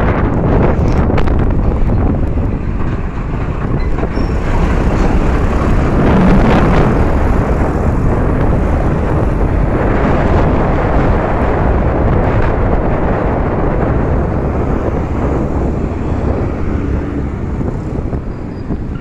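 Wind rushing over the microphone of a moving scooter, mixed with the low rumble of road traffic, a container truck among it near the start.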